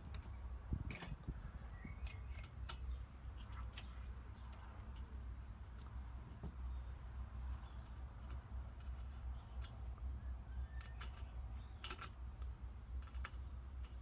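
Scattered small clicks and taps of parts being handled while a circuit board is fitted into a diesel heater's housing, with the sharpest clicks about a second in and near the end, over a steady low hum.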